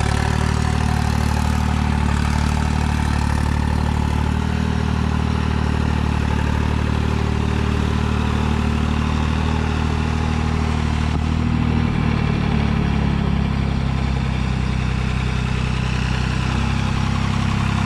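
New Holland 3630 TX Plus tractor's three-cylinder diesel engine running steadily at about 1200 rpm under load, driving an eight-foot super seeder. The engine note changes a little about twelve seconds in.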